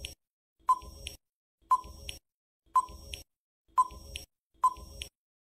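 Quiz countdown timer sound effect: five short electronic beeps, about one a second, ticking off the seconds.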